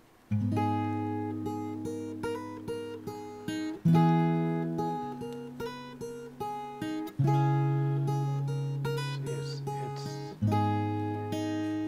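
Gentle background music of plucked-string notes ringing over low held notes, starting about a third of a second in. The low note changes about every three seconds.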